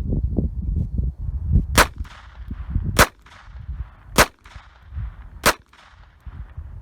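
Walther P22 .22 LR pistol firing CCI Target rounds at a block of wood: four sharp shots about a second and a quarter apart, each followed by a brief ring.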